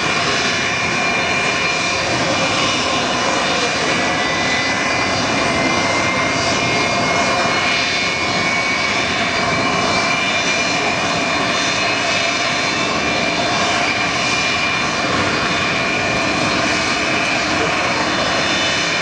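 Antonov An-124-100 Ruslan's Progress D-18T turbofan engines running on the ground after start-up: a steady jet rush with several high whines. One whine climbs slightly in pitch in the first half, then holds.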